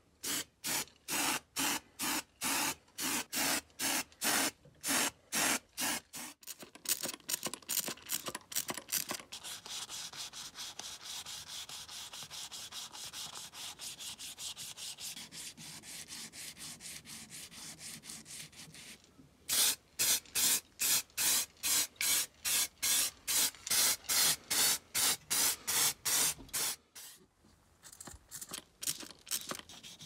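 Sandpaper rubbed by hand over the primed metal hopper of an antique Peugeot coffee grinder, in regular back-and-forth strokes of about two a second. Through the middle the rubbing turns faster and almost continuous, then falls back into distinct strokes.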